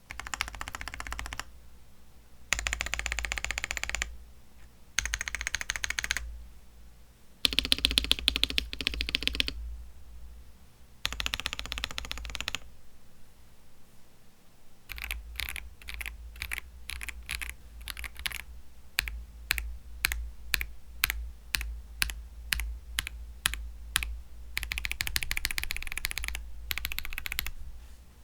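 Mechanical keyboard typing on stock, unlubed Akko CS switches: several short bursts of rapid keystrokes, then single keys pressed one at a time at an even pace, and a last quick burst near the end.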